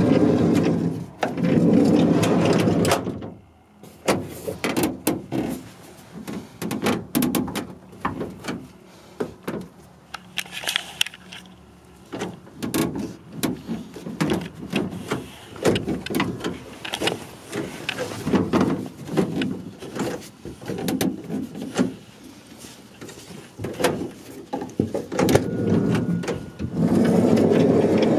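Handling noise on a van's wood-grain door panel: scrapes, clicks and knocks scattered throughout. Stretches of loud low rumbling noise in the first few seconds and again near the end.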